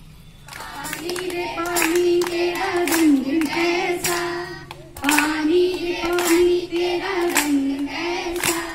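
A group of children singing a song together in unison, clapping their hands along with it. The singing starts about half a second in, breaks off briefly around the middle, then resumes.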